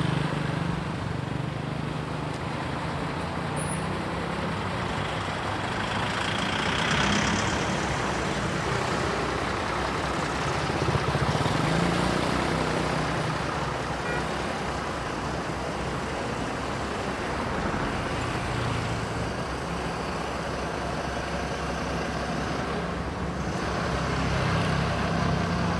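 Large buses' diesel engines running with a steady low drone.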